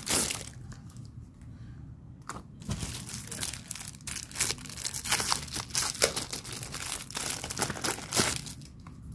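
Clear plastic sleeves around memo pads crinkling as they are handled and pulled open by hand, in irregular bursts that are busiest in the second half.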